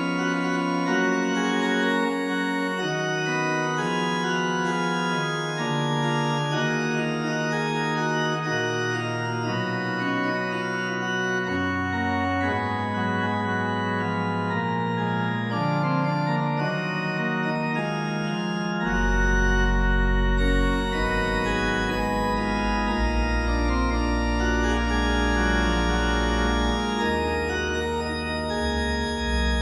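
Organ playing slow, sustained chords that change every second or two, with deep bass notes joining about two-thirds of the way through.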